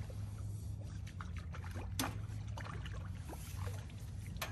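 A hooked fish being reeled in to a pier: irregular small clicks and knocks from the rod, reel and tackle, with light splashing of water, a sharp click about two seconds in, over a low steady rumble.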